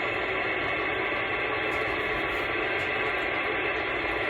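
CB radio receiver hiss: steady static on an open channel with no station coming through.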